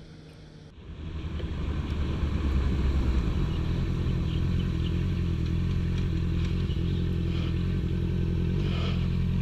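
Honda CB650F inline-four motorcycle engine running steadily while riding, coming in about a second in and holding an even level.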